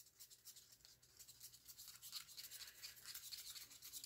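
Wooden craft stick stirring a thick acrylic paint mix in a paper cup: faint, quick scraping strokes against the cup, growing a little louder after about a second and a half.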